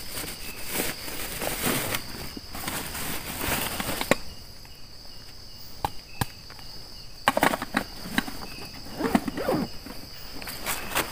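Insects, crickets among them, chirring steadily at night in a high even band. Over it come close rustling and handling noises with a few sharp knocks, settling about four seconds in and picking up again near the end.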